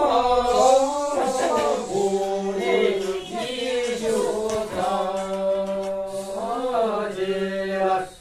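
Vocal chanting or singing in long, wavering held notes over a steady low drone, breaking off at the end.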